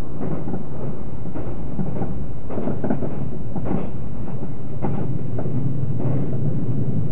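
Cabin running noise of a JR 381-series tilting limited-express train at speed on curving track: a steady low rumble with irregular knocks and rattles.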